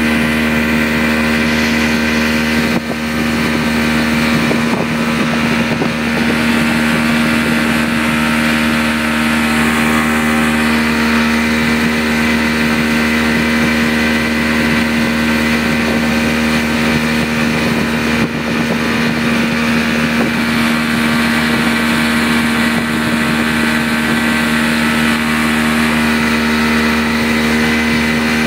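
Speedboat engine running at a steady pitch while towing a banana boat.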